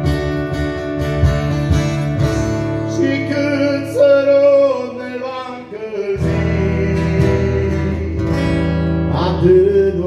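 Live amplified song: a man sings and plays guitar through a PA, the low end thinning out for about two seconds in the middle before coming back in.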